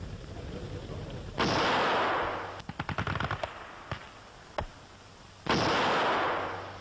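Battle gunfire on an old newsreel soundtrack: a loud blast about a second and a half in, then a rapid burst of machine-gun fire, a couple of single shots, and a second loud blast near the end.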